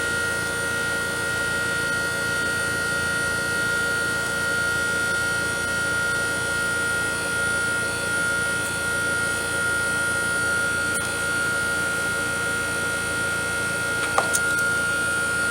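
Outdoor air-conditioning condenser unit running steadily: the compressor and condenser fan give an even whir with a high steady whine. A couple of clicks near the end.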